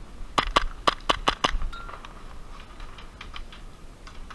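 Airsoft gun firing six quick semi-automatic shots in about a second, followed by a string of fainter shots.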